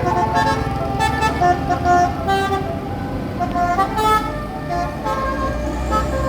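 A bus's basuri telolet horn, a multi-tone air horn, plays a quick melody of short notes that change pitch several times a second, over the low running of the bus engine.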